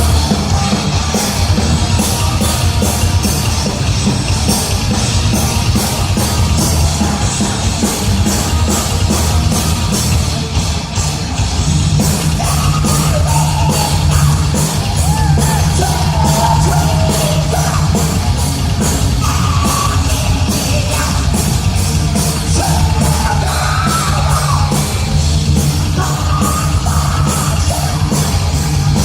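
Heavy metal band playing live: distorted guitars and bass over fast, driving drums. Yelled vocals come in about twelve seconds in.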